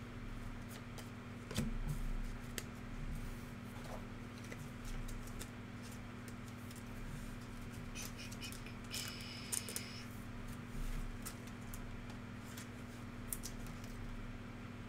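Trading cards being handled and flipped through, with small clicks and scratches of card stock over a steady low hum.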